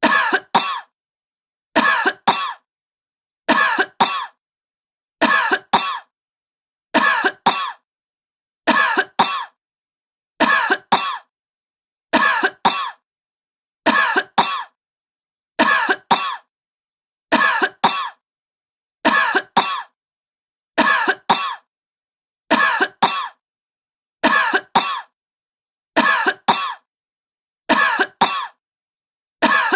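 A woman coughing in short bursts of a few coughs, the same burst repeating about every second and a half to two seconds with complete silence between.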